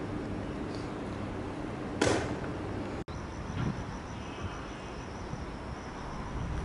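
Outdoor ambience with a steady hiss. About two seconds in, a short whoosh sweeps downward. After a brief dropout, a steady high insect buzz carries on to the end.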